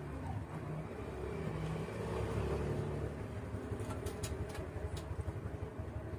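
Low rumble of a motor vehicle engine running nearby, swelling around two seconds in. A few sharp clicks come near the end as shrimp are peeled by hand.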